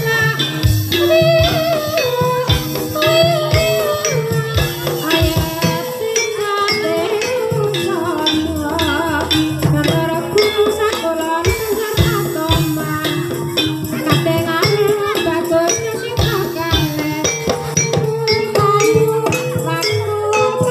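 Live ebeg accompaniment music: a gamelan ensemble playing a stepping melody of struck metal tones over regular drum strokes, with jingling, rattling percussion. A wavering high melodic line rises over it around the middle.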